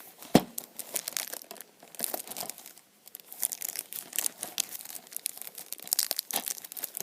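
Plastic shrink wrap on a DVD case crinkling and tearing as it is handled and peeled off: a dense run of irregular crackles, with a sharp knock less than half a second in.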